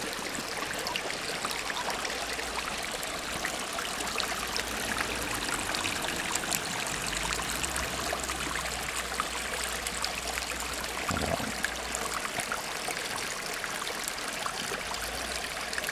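Water trickling and running steadily down a small stone-lined garden stream that flows gently toward the next pond.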